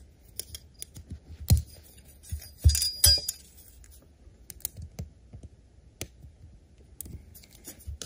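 Light clicks and metallic taps as plastic Christmas tree clips are pushed out of the holes in an aluminum fan platform with a small screwdriver. There are a few louder knocks about one and a half and three seconds in, one with a short ring.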